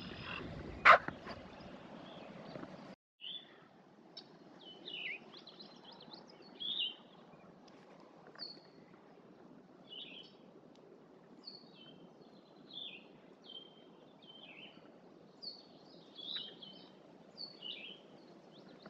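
Wild birds singing outdoors: short phrases of high chirps, repeated every second or two over a faint steady hiss. In the first three seconds there is only an open, hissy outdoor ambience with one sharp loud call or click about a second in.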